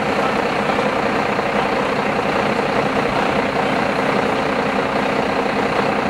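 Fire truck's diesel engine running steadily at a constant speed, with an even drone that does not rise or fall.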